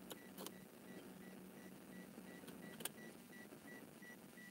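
Car's dashboard warning chime beeping in a rapid, even series at one pitch, the chime a car gives with the key sitting in the ignition. A few light clicks from the key and fingernails at the ignition switch sound over it, the sharpest near the start and a little before three seconds in.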